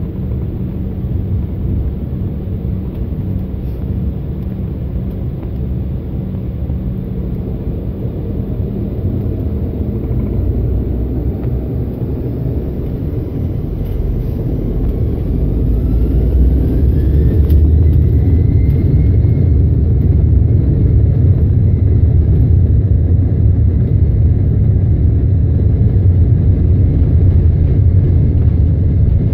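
Airliner's engines heard from inside the cabin on the takeoff roll: a steady low rumble, then about halfway through a whine rises in pitch and the rumble grows louder as the engines spool up to takeoff thrust, the whine then holding steady.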